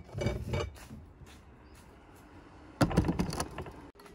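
Two short bursts of knocking and clatter, each under a second long: one at the start and a louder one about three seconds in. The sound is tea things, a samovar among them, being handled and set down on a table.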